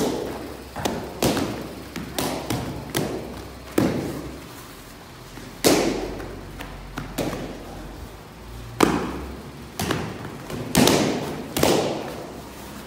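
Taekwondo kicks striking handheld kick paddles: a run of sharp slaps, irregularly spaced about one a second, each followed by a short ring of the room.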